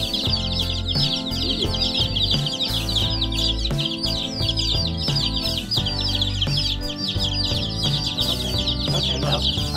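A crowd of baby chicks peeping constantly, many quick high peeps a second, each sliding downward. Background music with a steady beat plays underneath.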